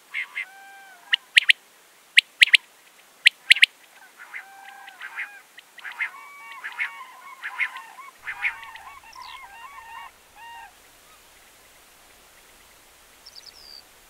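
Common cranes calling, many overlapping honking, bugling calls from a flock that die away about three-quarters of the way through. In the first few seconds there are several sharp, loud clicks, mostly in close pairs.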